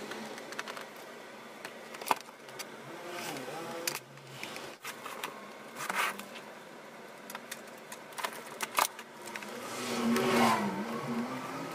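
Handling noise of a plastic LCD monitor being reassembled: scattered clicks and knocks of the plastic case and stand, with scraping and rustling as the monitor is lifted and turned over. It is louder about ten seconds in as the stand is pressed into place.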